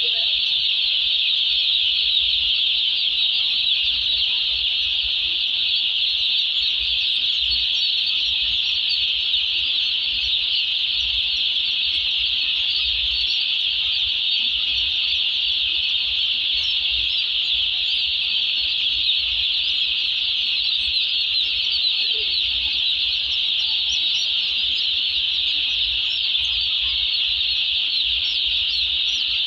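A mass of day-old chicks peeping together, a dense, steady high-pitched chorus of countless overlapping cheeps.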